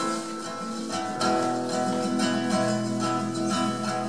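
Acoustic guitar strumming chords in an instrumental passage without singing, with a new chord struck about a second in.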